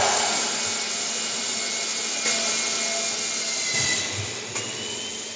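4-axis aluminium-profile CNC machining center running: a steady hiss of machine noise over a low hum, with a thin high whine that slides up in pitch about four seconds in.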